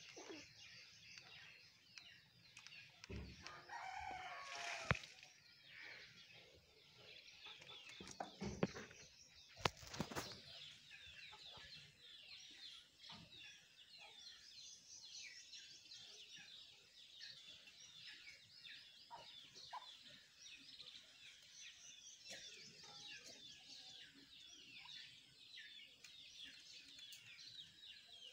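Faint, dense chirping of many small birds throughout, with a louder drawn-out call about four to five seconds in and a few sharp knocks between eight and ten seconds.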